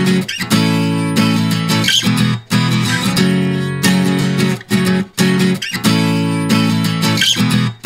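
Background music: guitar strumming sustained chords, with short breaks between phrases.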